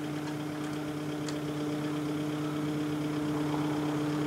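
Mini excavator's diesel engine running at a steady, unchanging pitch as its hydraulics take up a load on the boom, growing slightly louder over the few seconds.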